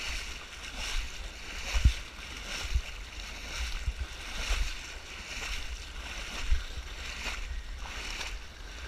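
People wading through shallow water, a splash with each stride about once a second, with a few low thumps on the body-worn microphone.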